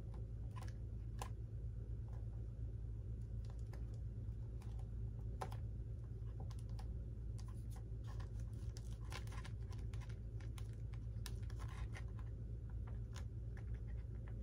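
Scattered small clicks and taps of hands handling and fitting small parts into a radio-control model plane's fuselage, over a steady low hum.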